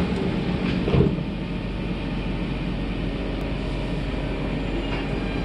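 Steady hum inside a stationary C651 MRT train with its doors closed, with two short clunks near the start and about a second in.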